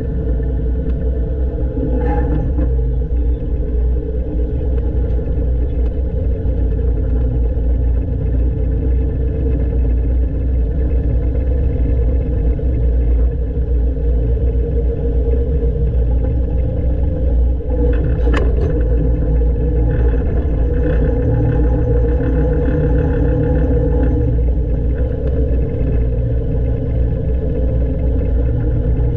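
Diesel engine of a 1970s Poclain LC80 excavator running steadily with a low rumble, which the owner says seems to have a misfire or fuelling issue. A knock sounds about two seconds in and a sharper, louder one about two-thirds of the way through.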